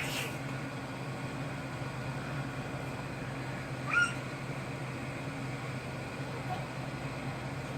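Air conditioner running with a steady low hum. A short high squeal, rising then falling, right at the start and again about four seconds in.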